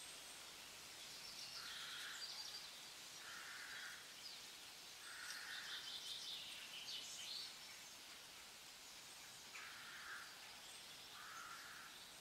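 Faint outdoor ambience: a steady hiss with short, chattering bird calls repeating every second or two.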